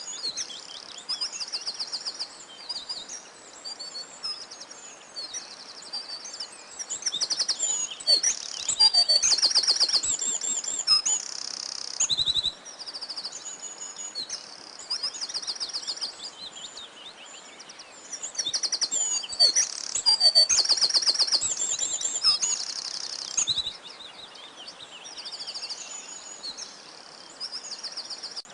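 Several songbirds singing together: fast, high trills of rapidly repeated notes overlap with short chirps and a few lower sliding whistles. The chorus swells louder twice, about a third of the way through and again past the middle.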